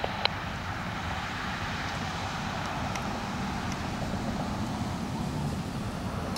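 Steady road traffic noise with wind on the microphone, and one sharp click just after the start.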